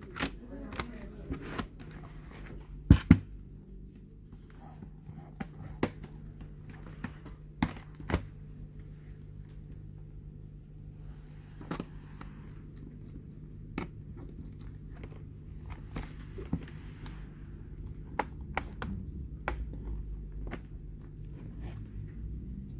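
Scattered small clicks and taps of a screwdriver and screws as a laptop's bottom cover is fastened, with two louder knocks about three seconds in, over a steady low hum.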